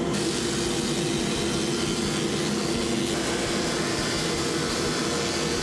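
Logosol CH3 multi-head planer moulder running steadily as a board is fed through and machined into tongue-and-groove: an even machine hum with a wide hiss of cutting and dust extraction.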